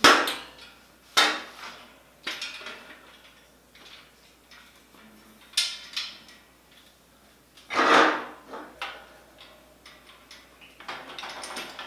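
Metal parts of an iron bird cage clanking and knocking together as they are handled and fitted: a handful of separate clanks, with one longer, louder rattle about two-thirds of the way through.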